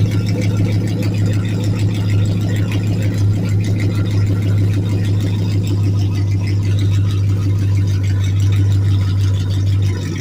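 Chevrolet Avalanche 1500's LM7 5.3-litre V8 idling steadily through a straight-piped exhaust with the muffler and catalytic converter removed: a loud, even rumble.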